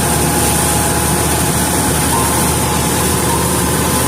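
Engine-driven wheat threshing machine running steadily, separating grain from the stalks with a loud, even mechanical din.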